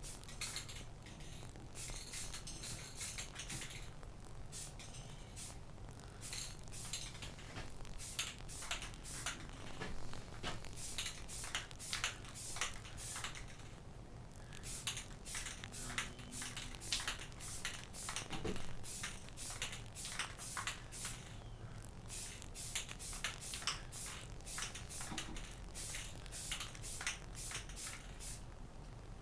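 Aerosol spray-paint can spraying in many short hissing bursts, with brief pauses of a second or two between runs.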